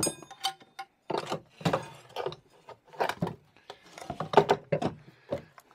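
Steel jackshaft being worked out of a snowmobile's sheet-metal chassis, with repeated clunks and scraping of metal on metal. The first knock, at the start, rings briefly.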